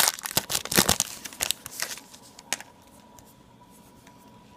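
Crinkling and tearing of a plastic trading-card pack wrapper being handled and opened, dense for about two seconds and then dying away, with one light click a little later.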